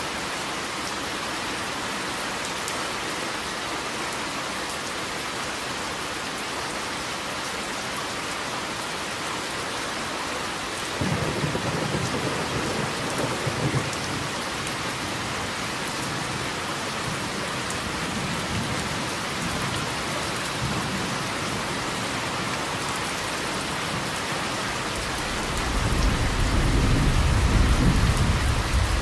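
Steady rain falling, with thunder rumbling twice: a sudden low roll about a third of the way in that fades after a few seconds, and a louder, deeper roll near the end.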